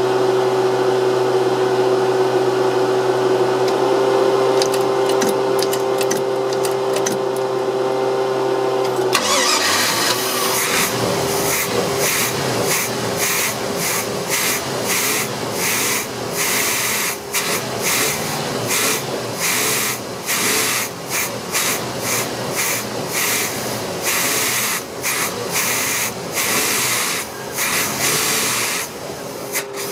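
OMC 5.0 L V8 boat engine running with a steady drone. About nine seconds in, a loud, irregular hissing and rubbing noise starts and largely covers it.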